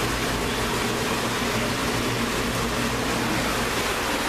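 Steady rush of running water, with a constant low hum beneath it.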